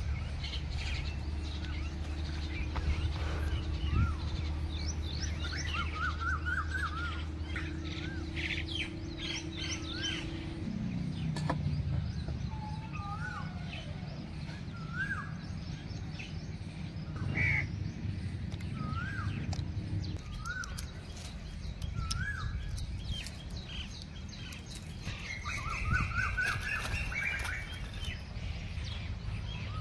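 Songbirds chirping outdoors: short rising-and-falling notes repeated about once a second, with a few quick trills. A low steady hum lies underneath and drops in pitch about ten seconds in.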